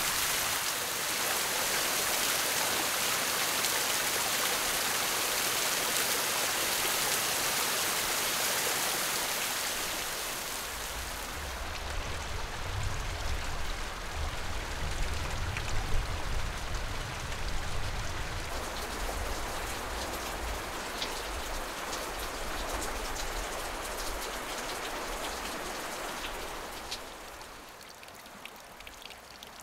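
Hot-spring water pouring off a rock ledge and spattering on rocks, a dense steady hiss like heavy rain. About eleven seconds in it turns softer, with the water sound thinner and a low rumble underneath.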